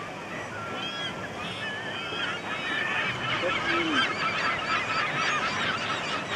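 A flock of gulls calling, many short overlapping cries that grow denser and louder about halfway through.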